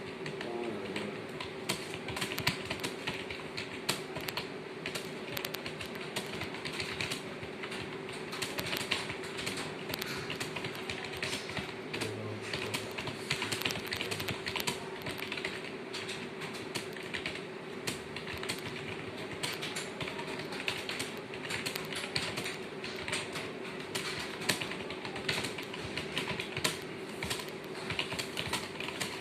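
Continuous fast typing on keyboards, a dense stream of key clicks with no pauses, over a steady hum.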